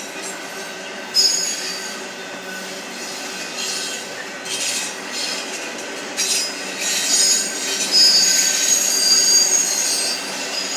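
Union Pacific double-stack freight train rolling past, its steel wheels squealing on the rails over a steady rumble. The high-pitched squeal comes and goes from about a second in and is strongest in the second half.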